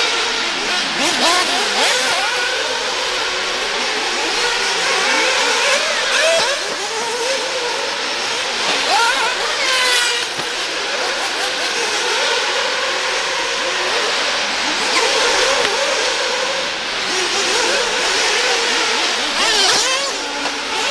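Several 1/10-scale electric RC off-road buggies running laps on a dirt track, their motors and drivetrains whining up and down in pitch as they accelerate and brake, over a steady rushing noise. A quick run of rising whines comes about halfway through.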